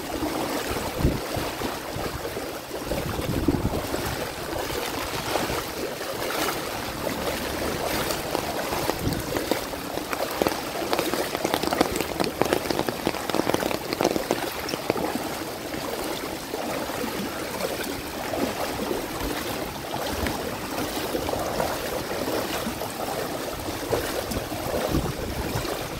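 Heavy rain falling with floodwater running and splashing: a steady rush of water full of small spatters.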